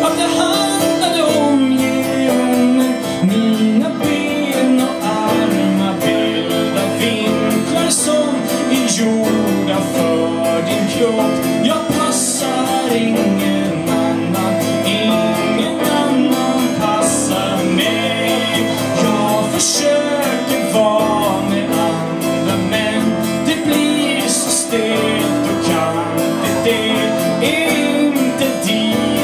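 Small band playing a song live: strummed acoustic guitar with a singing voice over it.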